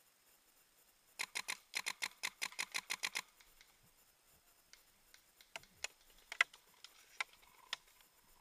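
Paintball marker firing a rapid string of about fifteen shots, roughly eight a second for two seconds. It is followed by half a dozen scattered single sharp cracks, the loudest about six and a half seconds in.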